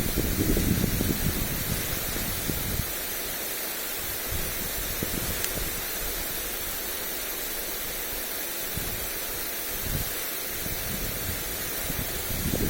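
Lawn sprinkler spraying water onto grass, a steady hiss. Wind gusts buffet the microphone with a low rumble at the start and again near the end.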